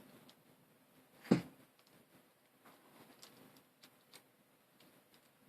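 Faint clicks and ticks of plastic V-Cube 7 puzzle pieces being handled and fitted together, with one louder click a little over a second in.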